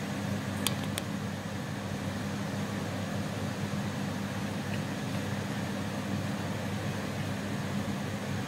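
Steady hum of a kitchen fan running, with a low drone underneath; two light clicks about a second in.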